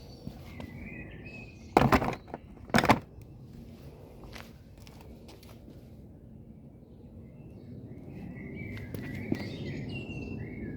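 Small birds chirping, with two loud knocks about a second apart around two seconds in. A low rumble builds toward the end.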